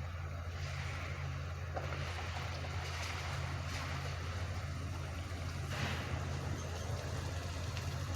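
Steady low hum of a truck engine running, with a few faint, short knocks and rustles over it.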